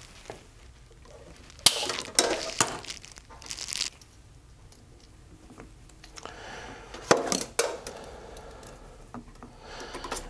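Plastic RO tubing and push-fit tee fittings being handled and fitted together by hand: scattered sharp clicks and short rustles as the out-sensor tee goes into the 1/4-inch water line.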